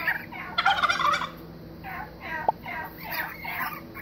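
A flock of domestic turkeys calling: a quick run of short, repeated calls, a few every second.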